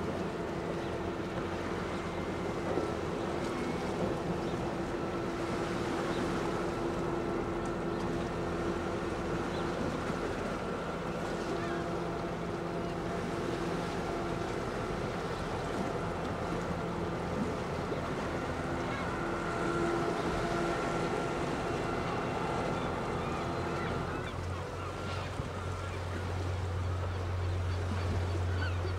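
Motor yacht's diesel engine running at low speed while manoeuvring, a steady drone with several constant tones over a low rumble. About 24 seconds in, the sound shifts to a deeper, stronger low hum.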